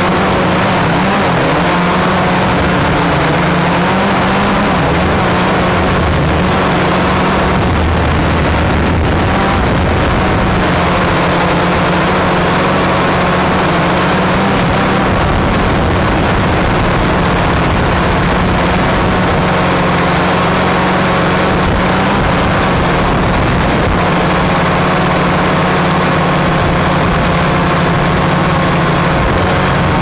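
Flexify drone's electric motors and propellers humming steadily from on board, the tones wavering slightly in pitch as it hovers and descends close to the ground.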